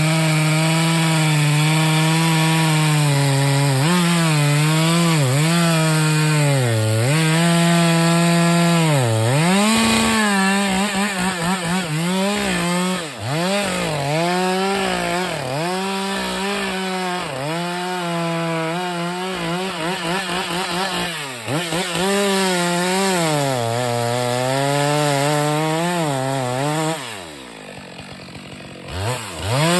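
Two-stroke chainsaw cutting at full throttle, its engine pitch dipping again and again as the chain bogs down in the wood and then recovering. About 27 s in the throttle is let off and the engine falls toward idle, then revs up again near the end.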